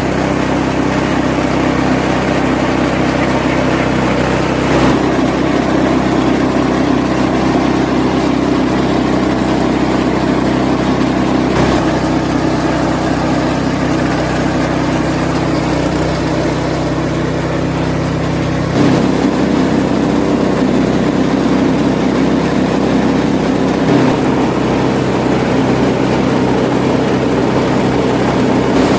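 Homemade banana-stem chopping machine for pig feed running with a steady motor drone. The pitch shifts twice, about a third and two thirds of the way through, and a few brief knocks sound along the way.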